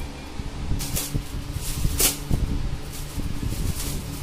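Shiny metallic gift-wrapping paper being picked at, torn and crinkled off a present, in several short rips and crackles. A pedestal fan hums steadily underneath.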